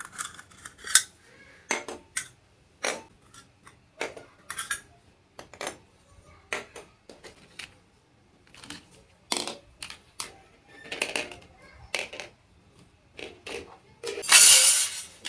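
Small toy kitchenware pieces clicking and clinking as they are handled and set down, many short taps at irregular spacing, with a longer, louder noise near the end.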